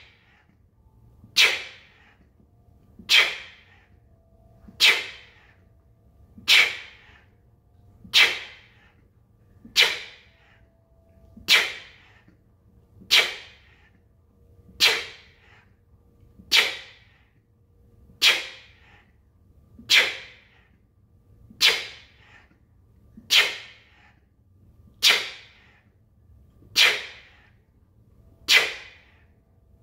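Forceful breath out through the mouth, a sharp hiss with each push-up, repeated evenly about every 1.7 seconds.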